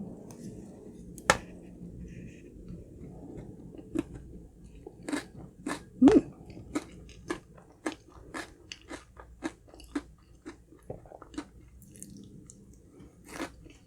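Close-miked chewing of honey crunch cake. About four seconds in, a steady run of crisp crunches starts, roughly two a second, from the crunchy honeycomb bits, after a single sharp click about a second in.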